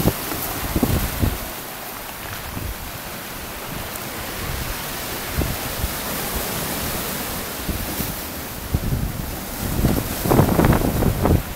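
Sea waves surging and breaking on rocks and a shingle beach, with wind buffeting the microphone in gusts. There is a louder rush about ten seconds in.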